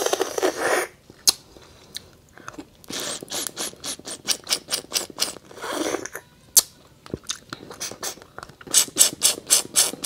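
Close-up sucking and slurping as lobster meat is drawn out of an opened claw shell, with runs of quick wet clicks and crackles.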